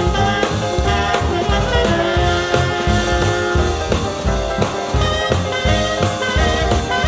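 Soundtrack music in a swing jazz style: horns playing a melody over a steady bouncing bass beat.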